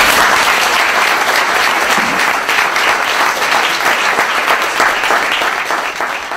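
Audience applauding: many hands clapping in a dense, even patter.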